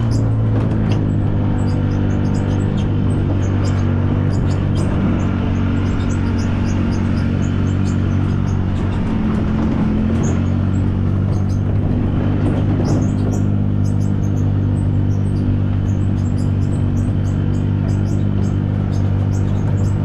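Golf cart running at a steady, even hum as it drives over grassy paths, with birds chirping.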